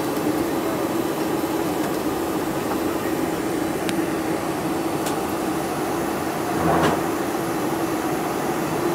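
Cabin noise inside a Boeing 747-400 taxiing onto the runway: a steady hum from the engines at low power, with a constant low note. A brief knock about seven seconds in.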